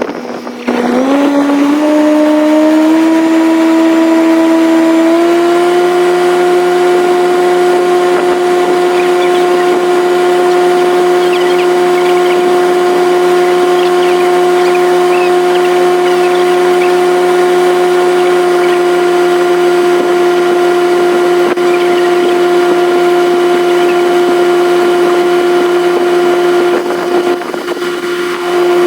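An engine speeding up over the first few seconds, then running steadily at a high, even pitch, with a brief drop in speed near the end.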